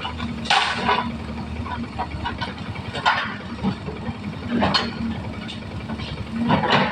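Hydraulic excavator's diesel engine running steadily, with short sharp knocks or clanks every one and a half to two and a half seconds, four in all.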